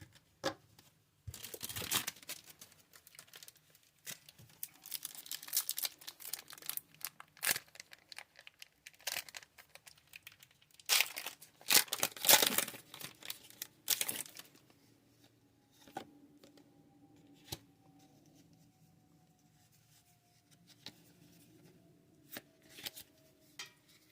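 Foil booster-pack wrapper being torn open and crinkled by hand, in several bursts of crackling, the loudest about twelve seconds in; then it quietens.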